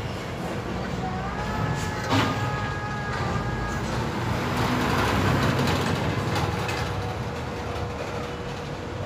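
Steady low rumble and hum of background noise, swelling slightly in the middle, with a sharp click about two seconds in.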